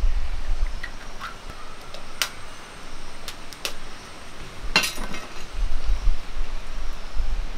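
Eggshell cracking and crackling in the fingers as a whole egg is broken open by hand: a few light, sharp cracks, with the loudest crunch just before five seconds in.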